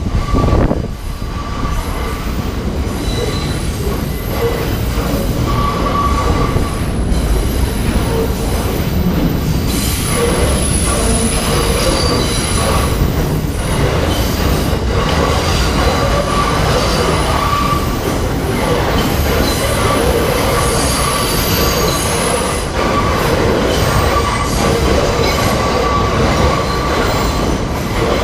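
New York Subway R68-series cars' steel wheels squealing against the rails, with flange squeal in several steady high pitches that swell and fade over a heavy, continuous rumble of the train.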